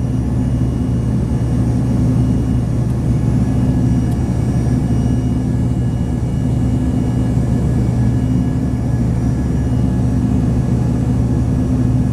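Steady cabin drone of an Embraer regional jet after take-off: jet engines and rushing air make a low hum with faint steady whining tones above it.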